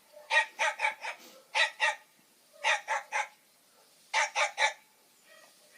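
Small dog barking: short, sharp yaps in four quick runs of two to four barks each, with short pauses between the runs.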